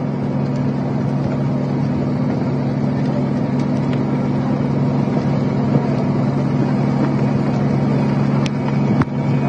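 A steady engine drone with a constant low hum over even background noise, unchanging throughout, with a brief knock near the end.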